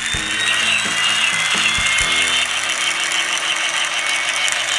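Electronic helicopter sound effect from a toy helicopter's built-in speaker: a steady whirring, hissy rotor noise with a high whine over it, set off by the toy being picked up and moved. A few light knocks come in the first two seconds.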